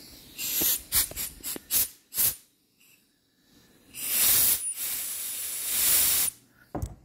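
Compressed-air blow gun hissing through the oil-supply passage of an Allis-Chalmers B cylinder head, out past the rear rocker stud: a quick series of short blasts, then one long blast of about two and a half seconds. The air gets through, showing the passage to the rocker shaft is flowing pretty good.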